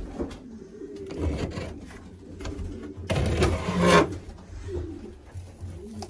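Racing pigeons cooing in the loft, low wavering coos throughout. Just past halfway comes a loud, noisy scraping rustle lasting about a second, as the nest box is opened and the straw-filled nest bowl is handled.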